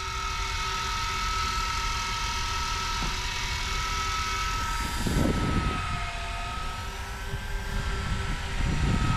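Several electric fishing reels whining steadily as they wind lines up from deep water, over a low rumble. Two louder low rumbles come about five seconds in and near the end.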